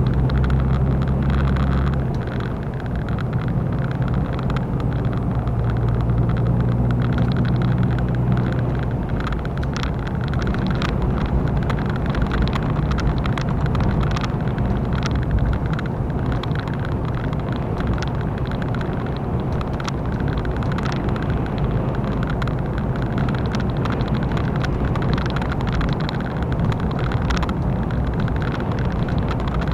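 Lorry cab interior while cruising on a motorway: a steady engine drone under continuous tyre and road noise, the low hum strongest for the first several seconds before settling into an even rumble.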